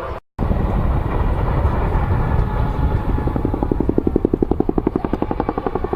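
Boeing Chinook tandem-rotor helicopter flying overhead with a heavy, steady rotor and engine rumble. From about halfway through, the rotors beat in a rapid, even thudding of roughly ten beats a second: the Chinook's blade slap.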